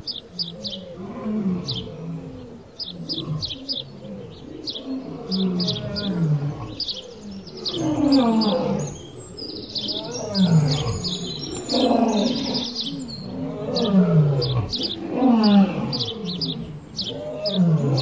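A series of deep animal calls, each about a second long and falling in pitch, repeating every second or two and louder in the second half, over steady rapid high-pitched bird chirping.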